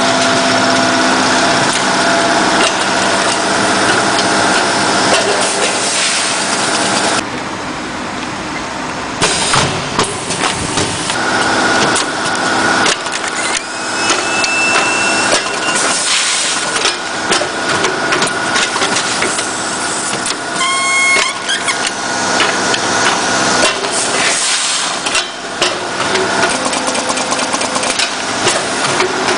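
Automatic packaging machine running: a steady mechanical hum overlaid with fast, irregular clicking and knocking from its moving parts.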